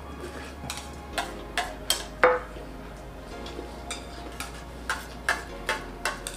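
Metal spoons clinking and scraping against stainless steel plates while eating, a string of sharp clinks with the loudest about two seconds in, ringing briefly.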